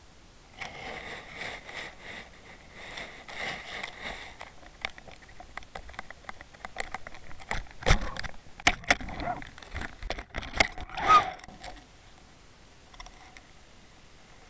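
Scratchy rasping, then a run of sharp knocks, clicks and scrapes on an underwater camera as it is jostled and moved through the water. The loudest knocks come about eight and eleven seconds in.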